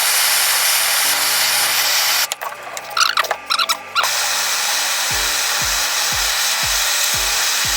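Soldering torch flame hissing steadily while it heats a copper pipe joint. The hiss breaks off for about a second and a half midway, then comes back.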